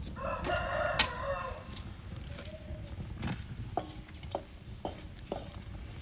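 A rooster crows once, a long wavering call lasting just under two seconds. Then comes a series of short, light knocks and clinks as a wooden spoon begins stirring the steel frying pan.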